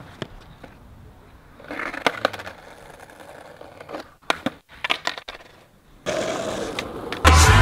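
Skateboard on concrete: quiet wheel noise broken by scattered knocks, then a cluster of sharp clacks about four to six seconds in as the board hits and tumbles on the pavement. Louder rolling noise follows near the end.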